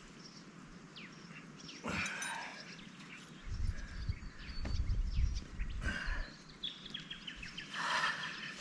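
Small birds chirping and calling in short, quick notes. There is a brief rushing noise about two seconds in and again near the end, and a low rumble in the middle.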